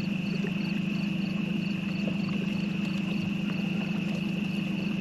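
Insects chirping: a steady high shrill with a regular pulse about three times a second, over a steady low hum.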